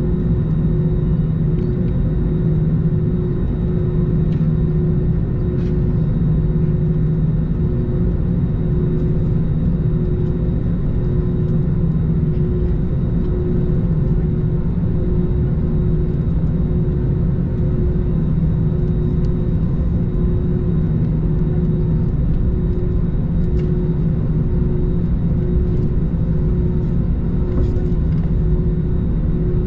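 Airbus A321 cabin noise while taxiing: the engines running at idle as a steady, even rumble, with a low hum and a higher hum that pulses regularly.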